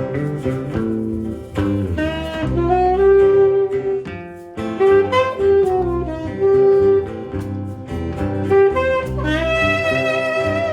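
Saxophone playing a melodic line of held notes over plucked guitar accompaniment.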